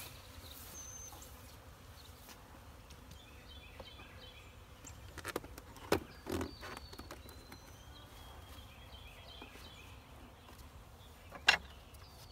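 Honey bees buzzing faintly around an open hive, with a few sharp knocks about halfway through and near the end as the wooden nuc box is handled.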